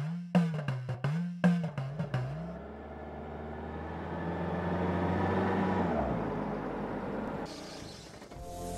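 Rhythmic drum music stops about two seconds in. A Skoda car then drives up and past, its engine and tyre noise swelling to a peak around the middle and fading away.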